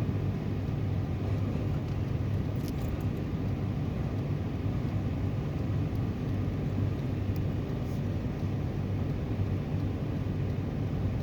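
Motor vehicle engine running steadily with a low, even hum, with a couple of faint clicks.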